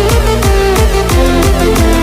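Electronic dance music with a steady beat: deep bass notes that fall in pitch in quick succession under sustained synth notes and crisp hi-hats.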